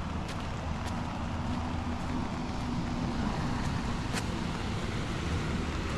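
A low, steady engine hum, with a few scattered sharp taps.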